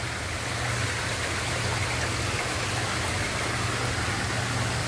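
Koi pond's water pump running: a steady low hum under the even hiss of flowing water.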